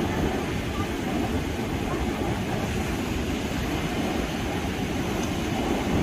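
Ocean surf breaking and washing up the beach: a steady, low rushing rumble with no pauses.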